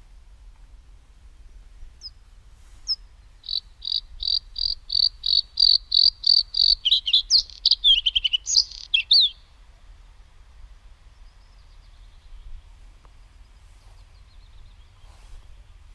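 A small songbird sings one song of about six seconds: two short lead-in notes, then a quick run of repeated high notes that speeds up and falls lower before ending in a brief flourish.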